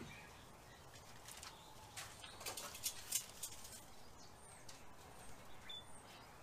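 Quiet backyard ambience with a few faint, short, high bird chirps. There are light clicks and rustles of handling about two to three and a half seconds in.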